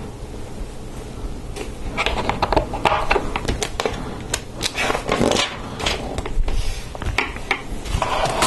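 Plastic LEGO Technic parts clicking and clattering as they are handled and pressed together, starting about two seconds in and going on as a busy run of short clicks.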